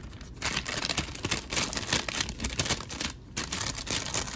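Crinkle-cut paper packing shred and paper wrapping rustling and crinkling as items are handled in a cardboard box, in a dense run of crackles with a short pause about three seconds in.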